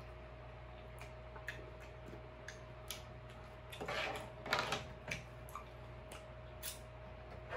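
Close-up mouth sounds of eating king crab: scattered wet smacking clicks while chewing the crab meat. About four seconds in, a louder, noisier stretch with clicks as crab shell is handled.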